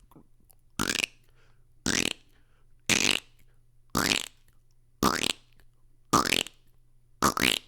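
A beatboxer's mouth sound repeated seven times, about once a second; each one short and sweeping upward in pitch.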